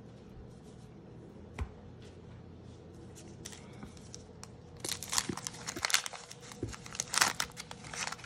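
Wax-paper wrapper of a 1987 Topps baseball card pack being torn open and crinkled by hand, a dense irregular crackling that starts about five seconds in. Before it come a few quiet seconds with a single small click.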